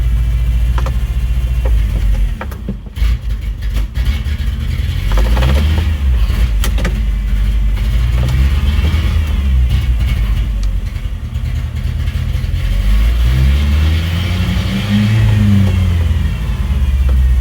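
1999 Ford Ranger's 2.5-litre four-cylinder engine running, its speed rising and falling several times as it is revved.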